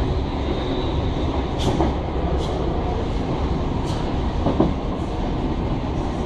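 British Rail Class 315 electric multiple unit heard from inside the front carriage while running, a steady rumble from the wheels and running gear. A few sharp clicks are heard over it, with a louder knock about four and a half seconds in, as the wheels cross rail joints or points.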